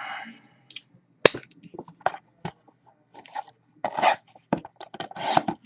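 A trading-card hobby box and its packaging being handled and opened by hand: a run of irregular clicks, scrapes and crinkling, with a sharp snap about a second in.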